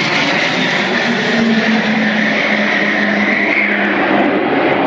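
An Avro Vulcan delta-wing bomber flying past, its four Rolls-Royce Olympus turbojets making loud, steady jet noise. A high tone in the noise wavers and dips, over a steady low tone.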